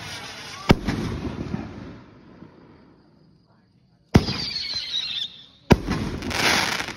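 Firework canister shells fired from a mortar tube. A shell bursts with a sharp bang under a second in, followed by crackling. About four seconds in a second shell launches with a thump and a falling whistle, then bursts a second and a half later with a bang and a long crackling spray.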